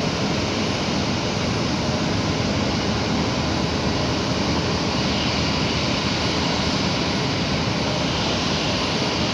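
Rolls-Royce Trent XWB jet engines of an Airbus A350 running at idle: a steady, even rushing hum with no change in level.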